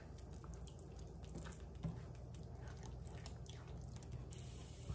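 A silicone spatula stirring a thick, creamy sauce in a skillet, making faint wet squishing and small clicks over a low steady hum.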